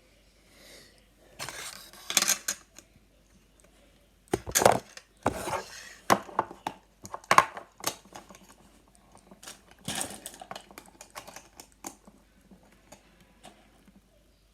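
Plastic Rubik's cubes and puzzles clacking and knocking against each other as they are handled and stacked, in irregular clicks with a few louder knocks.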